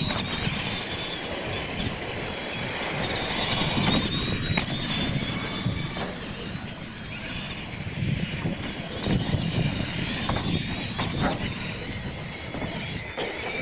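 Radio-controlled monster truck running on a dirt track, its motor giving a high whine that wavers with the throttle over a steady outdoor rumble.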